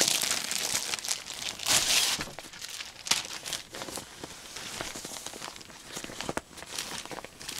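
Clear plastic wrapping crinkling and rustling under hands, loudest in the first two seconds or so. Softer rustling of the tripod's nylon carry bag follows, with a few sharp clicks.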